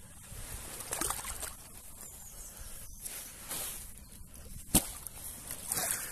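Wet carp sling being handled at the water's edge as a fish is released: fabric rustling and water sloshing, then water pouring and dripping off the sling as it is lifted out near the end. A single sharp knock sounds a little before the end.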